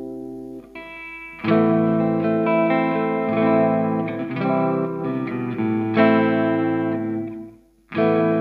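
Charvel SL-145 electric guitar played with a clean tone on its neck pickup: chords ring out with long sustain. A new chord comes in about a second and a half in. The sound cuts off briefly near the end before another chord is struck.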